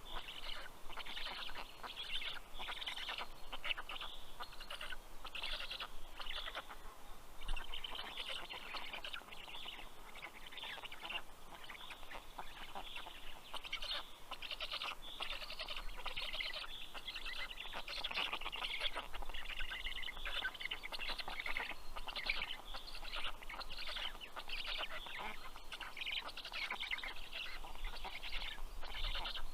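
Black stork chicks calling at the nest: a dense, unbroken run of high chirping calls.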